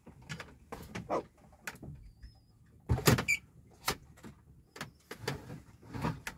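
Irregular clunks and knocks from handling a transom-mount electric trolling motor and its mounting bracket while it is being lowered toward the water. The loudest knocks come about halfway through and at the very end.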